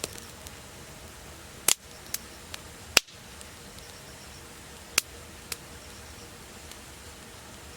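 Campfire crackling: sharp, irregular pops, about seven of them, the loudest about three seconds in, over a soft steady hiss.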